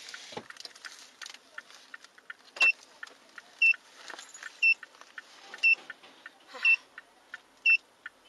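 A car's power window finishes closing, ending with a soft thump less than half a second in. Then a short, high electronic beep sounds about once a second.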